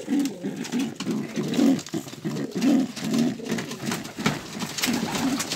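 Domestic pigeons cooing, a run of short low coos about two or three a second, with light rustling and clicks from the straw nest being handled.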